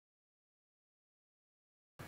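Silence: the audio drops out completely.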